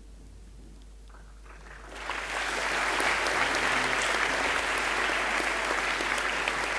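Audience applauding: after a quiet moment the clapping swells in about two seconds in and goes on steadily.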